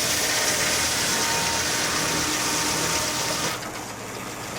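Sawmill machinery running with a loud, steady hiss that stops suddenly about three and a half seconds in.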